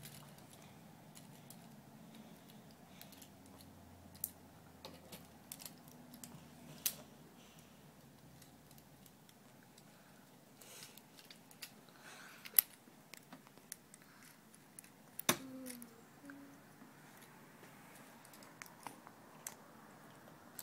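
Plastic Transformers Bumblebee action figure being folded by hand: scattered small clicks and snaps of its jointed plastic parts, the loudest two about twelve and fifteen seconds in.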